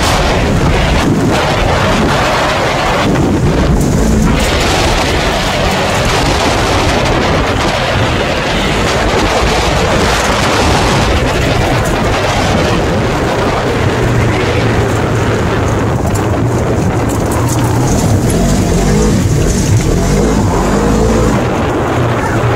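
Off-road vehicle driving over a dirt-and-gravel track: steady engine and drivetrain noise mixed with tyre rumble and wind buffeting the microphone. The engine note rises and falls a few times and settles into a steadier low hum in the second half.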